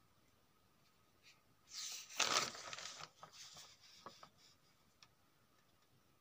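Paper rustling as a notebook page is turned: a rush of about a second and a half, then a few small crinkles and clicks.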